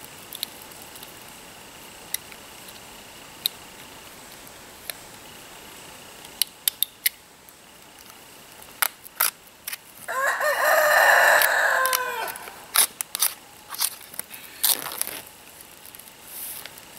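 A rooster crows once about ten seconds in, a call of some two and a half seconds that drops in pitch at the end. Around it come scattered light clicks and crackles from a knife slitting the plastic film on a tray of chicken breasts.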